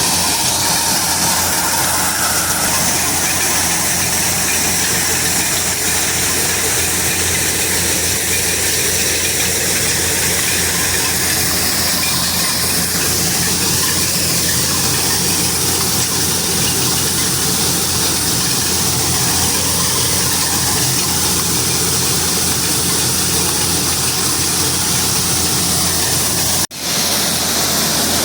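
Engine of a corn harvesting machine running steadily and loud under a dense mechanical clatter, broken by a split-second dropout near the end.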